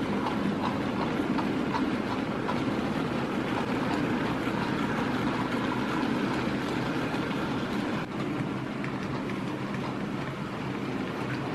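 HO-scale model freight train rolling along the layout's track, hauled by a Roco DRG E94 'crocodile' electric locomotive model: a steady rumble of wagon wheels on the rails with light clicking. The sound drops a little about eight seconds in.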